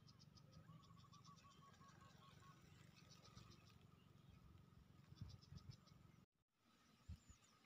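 Near silence: faint outdoor field ambience with faint runs of quick high chirps, and a short run of quick repeated notes about a second in.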